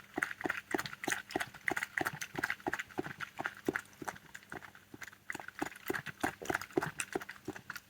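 Red fox lapping water, a steady rhythm of quick wet laps at about four to five a second.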